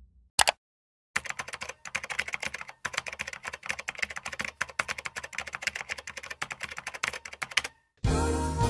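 Rapid, irregular typing on a computer keyboard: many quick keystroke clicks for several seconds, stopping shortly before music starts near the end.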